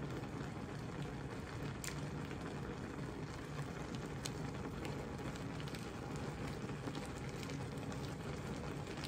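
Steady rushing background noise, with a few faint crinkles and ticks from a sauce packet being torn open and squeezed over food.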